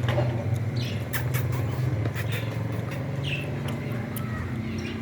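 A motor vehicle's engine running steadily, with scattered short clicks and a few brief chirps over it.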